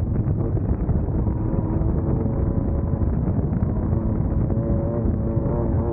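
Class 1600 off-road race car's air-cooled VW 1600 cc flat-four running hard at fairly steady revs, under a dense low rumble.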